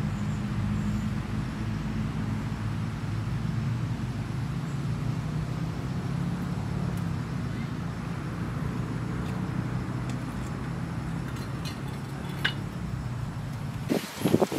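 A motor running steadily with a low hum. A few faint clicks come near the end, then louder knocks and rustling at the very end.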